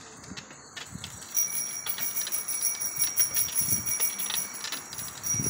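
Bicycle bell rung over and over: a steady high ringing with rapid ticks, starting about a second in.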